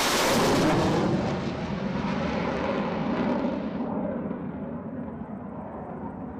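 F-16 Fighting Falcon jet passing overhead on a low show-of-force pass, loudest right at the start, then fading as it flies away. Its high hiss dies out about four seconds in, leaving a lower, steady rumble.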